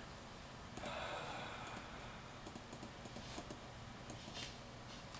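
A scattering of faint, sharp little clicks, some in quick pairs, with a soft breathy noise about a second in.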